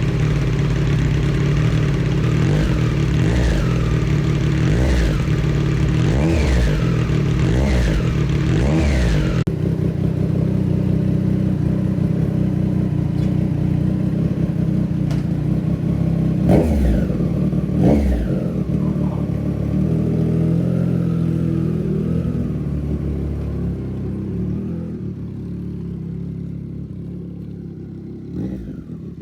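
Triumph Street Triple's three-cylinder engine through a Racefit Growler X slip-on exhaust, revving up and down repeatedly for the first nine seconds or so, then running steadier. There are two sharp cracks about 16 and 18 seconds in, and the sound dies away near the end.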